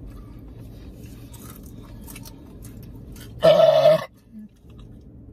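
A woman's loud burp lasting about half a second, about three and a half seconds in, over a low steady hum.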